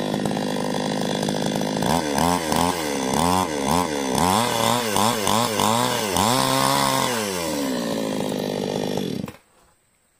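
Two-stroke chainsaw running: a steady note at first, then revved up and down about ten times over roughly five seconds, then steady again before the sound cuts off suddenly near the end.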